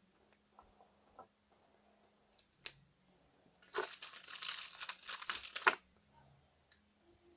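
Two short clicks, then about two seconds of crackly crinkling and tearing of wrapping being handled.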